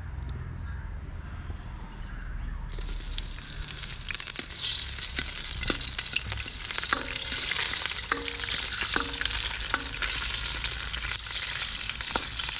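Pandan (rampe) leaves hitting hot oil in a metal wok: a loud sizzle breaks out suddenly a little under three seconds in and keeps going. A wooden spatula stirs the leaves, with occasional clicks and scrapes against the pan.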